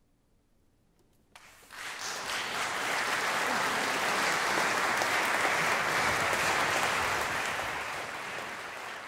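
Audience applauding after a performance. About a second and a half of hush ends with the first few claps, then the applause breaks out, swells, holds and starts to ease off near the end.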